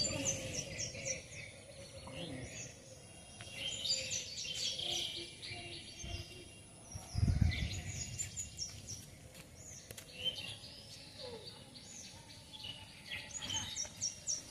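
Small birds chirping in quick bunches of short calls that slide down in pitch, repeated several times, over a faint outdoor background hum. A brief low rumble comes about seven seconds in.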